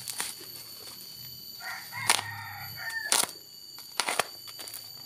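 A taped plastic parcel being handled and torn open, with sharp crackles several times. A rooster crows once about a second and a half in, its call falling away at the end.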